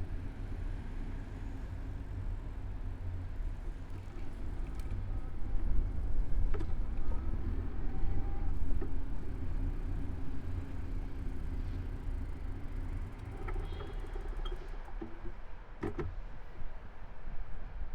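Riding noise picked up by a camera mounted on a moving bicycle: a steady low rumble of wind and road, with a few sharp clicks and faint street sounds behind it.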